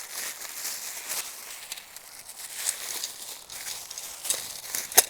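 Rustling and scuffing of nylon tent fabric and gear being handled, in short uneven bursts, with a sharp click near the end.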